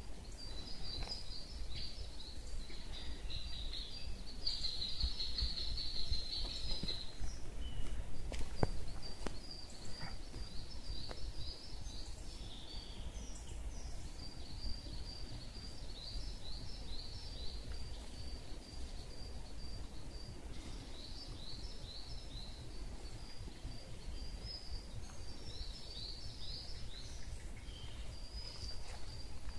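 Woodland birds singing: a near-continuous run of short, high chirps and trills, with a denser trill about four to seven seconds in, over a low rumble on the microphone.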